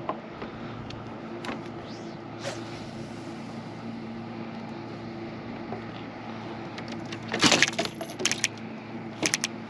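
Steady low electric-sounding hum aboard a bass boat, with a loud burst of sharp knocks and rattles about seven and a half seconds in and a few more clicks near the end.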